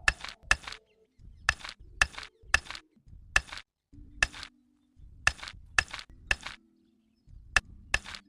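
Sharp taps and clinks of small hard pieces, as in laying mini bricks: about a dozen short clicks, many in pairs about half a second apart, each with a brief ring.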